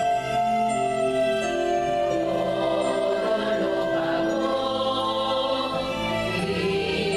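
Women's choir singing a hymn over sustained accompaniment chords, with the voices filling in from about two seconds in.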